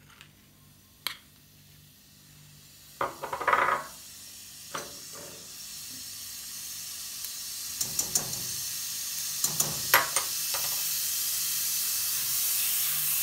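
Butter melting and sizzling in a hot nonstick saucepan on high heat, the sizzle growing steadily louder as the pan heats. A silicone whisk scrapes and knocks against the pan a few times.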